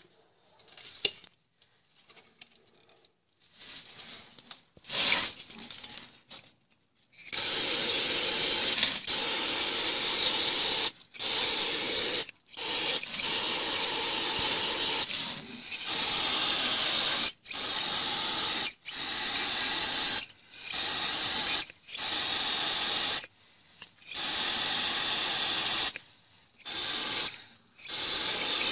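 Aerosol spray can with a straw nozzle being sprayed onto engine parts in about ten hissing bursts of one to three seconds each, with short breaks between them, starting about seven seconds in. Before that there are a sharp click about a second in and a few fainter short hisses.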